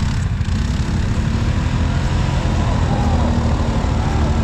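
ATV engine running steadily at a low, even pitch.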